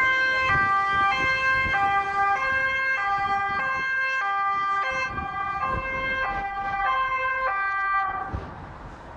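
Dutch police car's two-tone siren, high and low notes alternating about every 0.6 s as the car arrives. It cuts off about eight seconds in.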